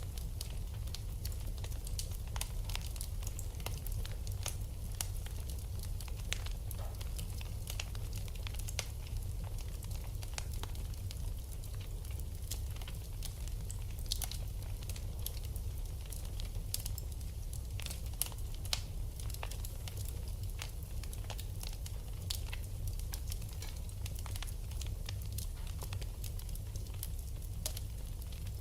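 Fire burning in a fireplace, crackling with frequent irregular sharp pops and snaps over a steady low rumble.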